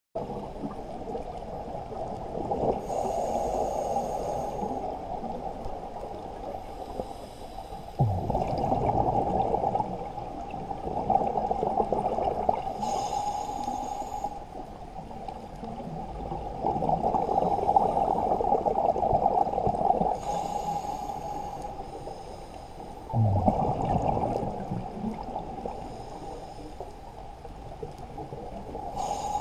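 Scuba diver breathing underwater through a regulator: a hissing breath in every several seconds and bubbling, gurgling exhalations, with two sudden louder bursts of exhaled bubbles, about eight seconds in and again later.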